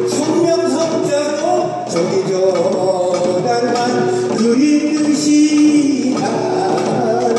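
Korean traditional folk music: a voice singing long drawn-out notes over buk barrel drums and sogo hand drums beating along.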